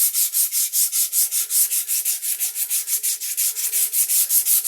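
Hand sanding of a wooden rocking chair with 80-grit sandpaper: fast, even back-and-forth strokes at about five a second.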